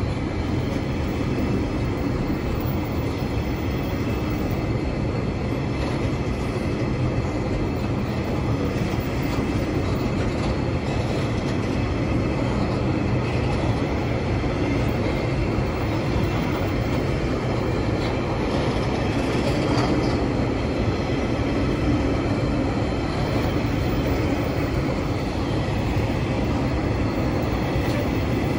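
Tasrail freight train of empty log wagons and container wagons rolling past over a level crossing: a steady, unbroken noise of wheels on rail.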